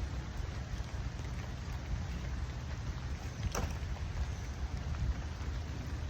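Steady rain falling, an even hiss of drops over a low rumble, with one sharp tap a little past halfway through.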